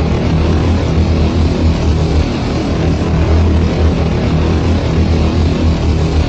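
A loud, steady low droning hum that pulses unevenly, with a hiss above it.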